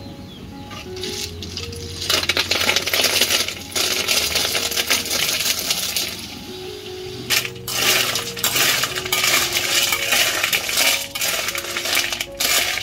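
Snails in their shells poured into a hot steel wok, starting about two seconds in, the hard shells clattering and rattling on the metal. In the second half they are stirred with a metal spatula, shells rattling and scraping in the pan in repeated bursts.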